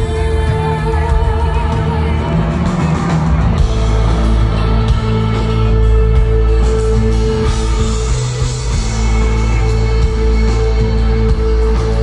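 Live rock band playing loudly through a festival PA: electric guitars, bass and drums with singing, heard from within the crowd.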